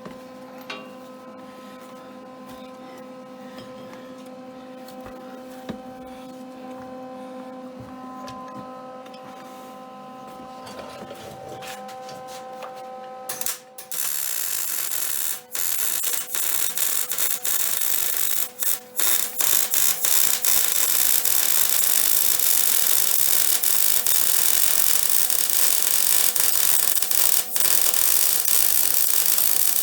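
Electric welding arc hissing and crackling steadily, starting abruptly about halfway in, with a few brief breaks where the arc stops. Before it, only a quieter steady hum of held tones.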